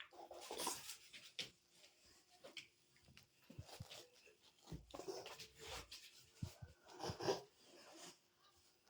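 Rottweiler making short, irregular breathy noises in several bursts, the loudest about seven seconds in.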